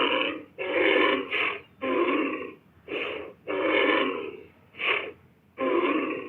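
Aurochs sound-effect calls: a quick run of about eight short, breathy animal calls, each under a second, separated by brief pauses.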